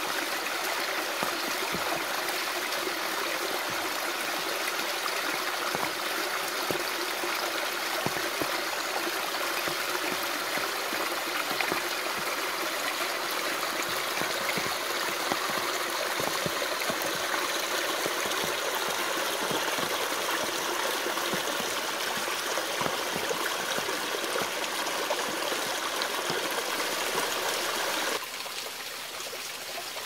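Mountain stream water cascading down a stepped rock channel, a steady rushing splash. About two seconds before the end it drops to a quieter flow of water hidden in undergrowth.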